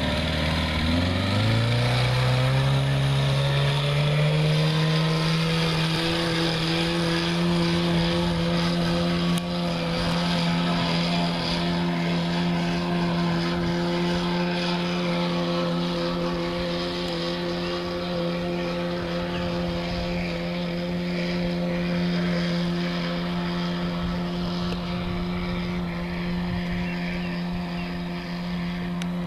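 Mercury 9.8 hp two-stroke outboard motor pushing an inflatable boat: it revs up over the first several seconds as the boat gets up to speed, then runs steadily at speed. It grows slightly fainter near the end as the boat moves away.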